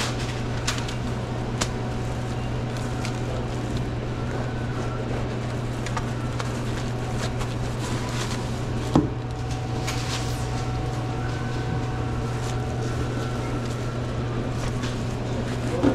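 Sandwich-shop work sounds over a steady low hum: scattered light clicks and knocks of containers and utensils being handled, with one louder knock about nine seconds in.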